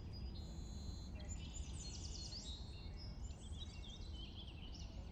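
Birds chirping and singing in quick trills and short rising and falling notes over a steady low rumble of outdoor background noise.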